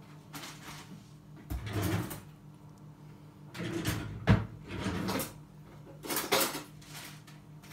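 Plastic bag of tortilla wraps being handled and crinkled in three bursts while someone struggles to open it, with a sharp knock about four seconds in.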